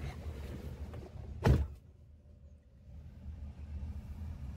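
A single heavy thump about a second and a half in, heard inside a Daihatsu Taft's cabin over a low rumble. The rumble drops away for a moment after the thump and then returns.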